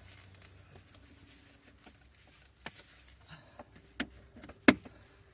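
Scattered clicks and knocks of tools and parts being handled on the Jeep's interior, with one sharp knock near the end standing out as the loudest.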